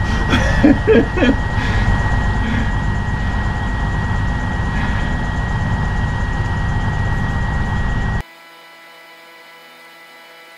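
Stationary diesel passenger train idling at a platform with its door open: a steady low engine rumble with a thin high whine held over it. About eight seconds in, it cuts off abruptly to a much quieter hum with faint steady tones.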